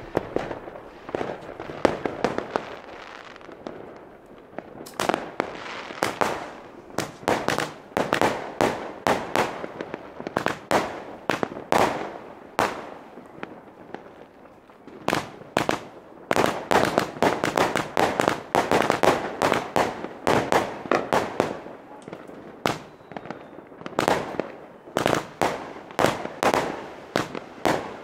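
Geisha-Rubro Commander 110-shot compound firework cake firing: a rapid series of sharp shots and aerial bursts, coming in dense runs with a couple of short lulls between sequences.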